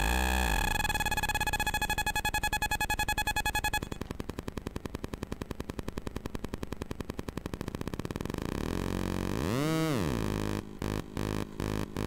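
Square-wave buzz from a homemade breadboard synth of two 555 timers feeding into each other, its pitch shifted by hand-turned potentiometers. A steady buzzing tone turns into a fast, even pulsing about four seconds in, swoops up and back down near ten seconds, and cuts out briefly a few times near the end.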